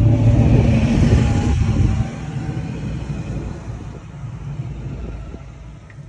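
Classic muscle car's exhaust rumbling loudly as it drives past, then dropping away abruptly about two seconds in and fading as it moves off, leaving a low traffic rumble.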